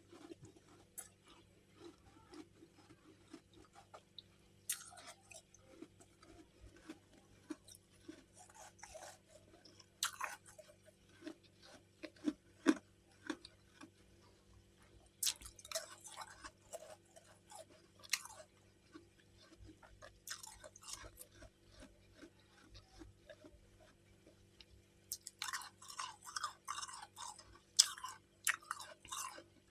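Chunks of freezer frost crunched and chewed close to the microphone, in scattered bites with pauses between, then a quick run of crunching near the end.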